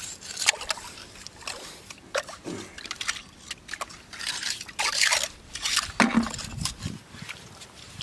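Shallow water sloshing and trickling, with short scrapes and clicks, as metal beachcombing tongs poke and dig among shells, stones and wet mud in a tidal pool.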